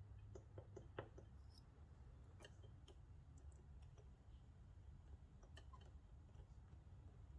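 Faint small clicks of a lock pick working inside a Mul-T-Lock MT5+ cylinder, probing to set the alpha spring. There is a quick cluster of clicks in the first second, then a few scattered ones.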